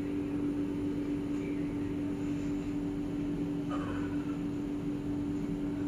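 A steady machine hum with one strong low tone, holding level throughout, with a faint light rustle about four seconds in.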